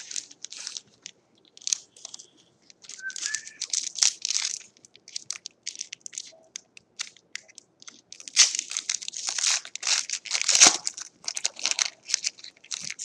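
Foil wrapper of a trading card pack crinkling in short crackling bursts as it is handled and torn open, loudest about two-thirds of the way through.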